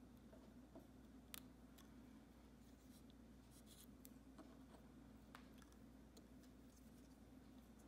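Near silence: faint ticks and rustles of fingers handling thread and a fly held in a fly-tying vise, over a low steady hum.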